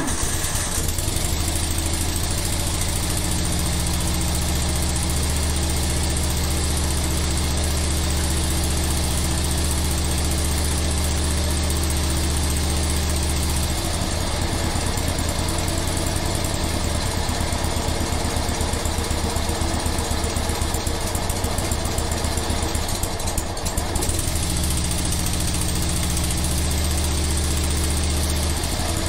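Wheel Horse 267HE ride-on mower engine starting and running steadily through its newly fitted twin mufflers. The steady low engine note wavers about halfway through and settles again a few seconds before the end.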